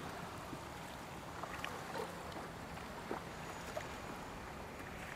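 Small waves lapping and splashing against a windsurf board in shallow sea, with a few light ticks of water and a low rumble of wind on the microphone.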